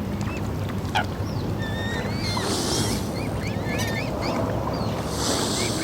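Birds chirping in many short, quick calls over a steady low rush of water, with two brief bursts of splashing hiss, one about two seconds in and one near the end.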